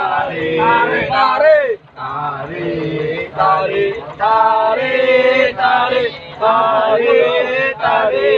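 A group of men's voices chanting together, a sung call with long held, wavering notes broken by short pauses for breath. This is the work chant that fishing crews sing while hauling a purse-seine net by hand. A faint steady low hum runs underneath.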